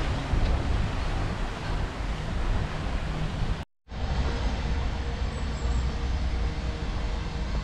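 Outdoor street ambience: wind rumbling on the microphone over traffic noise. It cuts out completely for a moment a little past halfway, then carries on.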